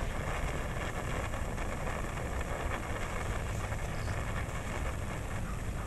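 Senko hanabi (Japanese incense-stick sparkler) burning in its sparking stage with a soft, continuous crackle, under a steady low rumble.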